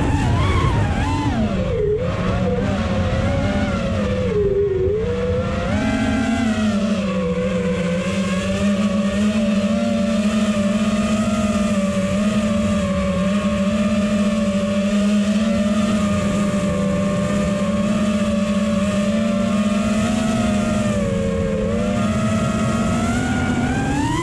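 FPV quadcopter's brushless motors whining, heard from the onboard camera: the pitch swoops up and down with the throttle over the first few seconds, holds steady through the middle, then dips and climbs sharply near the end. Wind rumbles on the microphone underneath.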